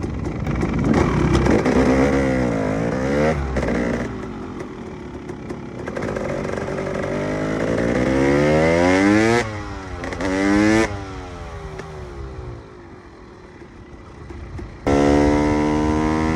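KTM EXC 300 two-stroke single-cylinder dirt bike engine revving, its pitch climbing and falling repeatedly as the throttle is opened and shut. There is a quieter, lower-revving stretch before a sudden sharp blip of throttle near the end.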